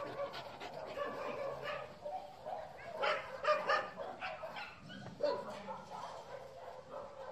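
Young dog whining and yelping, with a few short barks; the loudest calls come about three to four seconds in and again just after five seconds.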